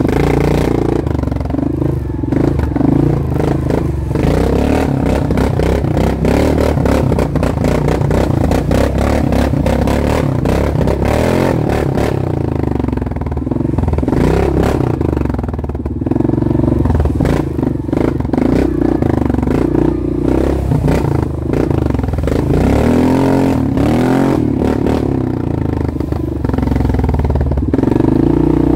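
Off-road vehicle engine running under load on a rough trail, its pitch rising and falling as the throttle goes on and off, with rattling and clatter from the vehicle over bumps.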